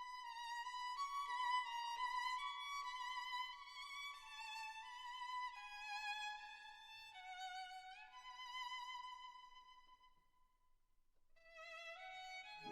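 Background music: a slow solo violin melody with vibrato, moving in long held notes. It dies away about ten seconds in, then a new phrase begins.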